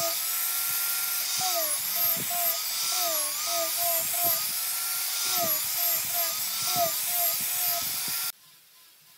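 Angle grinder with a sanding disc sanding the ends of wooden slats: a steady motor whine with a hiss of grit, its pitch dipping each time the disc is pressed into the wood and recovering as it lifts off. It cuts off abruptly about eight seconds in.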